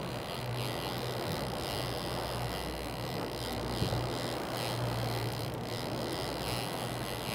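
Yamaha outboard motor running steadily behind the boat, a constant low drone, with water churning in its wake and wind noise over the top.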